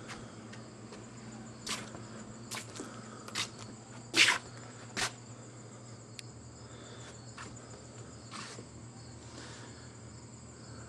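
Crickets chirping steadily in a high thin trill, with a few short sharp knocks or taps scattered through, the loudest about four seconds in.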